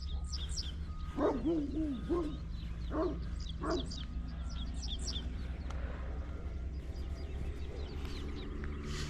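A big dog vocalizing: a drawn-out, wavering call about a second in, then two short barks around three seconds in. Small birds chirp throughout.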